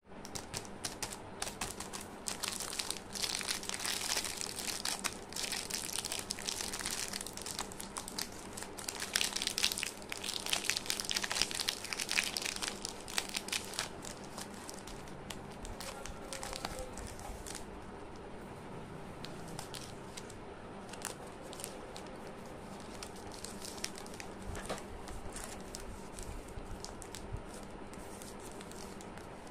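Plastic chocolate-bar wrappers crinkling as hands pick up and handle them, a dense crackle loudest in the first half and softer later on.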